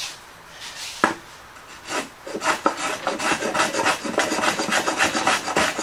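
A hand tool worked rapidly back and forth on the edge of a pine board, about five short scraping strokes a second, starting about two seconds in. A single sharp knock about a second in.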